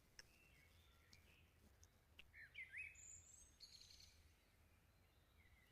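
Near silence: room tone with a few faint bird chirps about halfway through.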